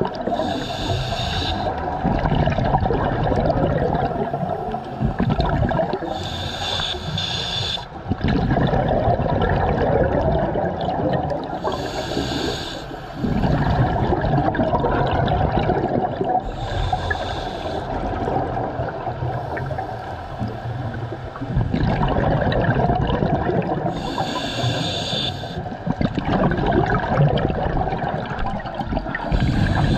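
Scuba diver breathing through a regulator underwater: six short hissing inhalations, one every five or six seconds, each followed by a longer low rush of exhaled bubbles.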